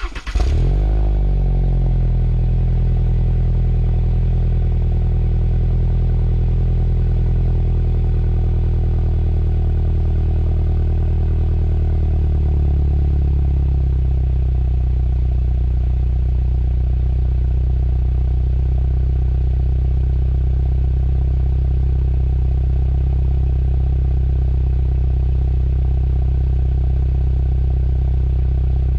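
Car engine starting and then idling steadily through a newly fitted exhaust that has just been sealed. A brief flare comes at start-up, and the idle note shifts slightly about twelve seconds in.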